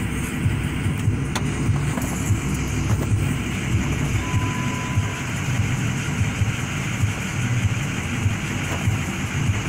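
Wind buffeting the microphone, an uneven low rumble, with a brief faint steady tone about four seconds in.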